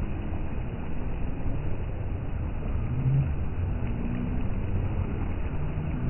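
Small waves breaking and washing up a sandy beach: a steady, low rush of surf.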